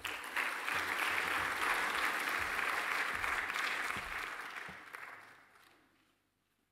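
Audience applauding, dying away in the last second or so.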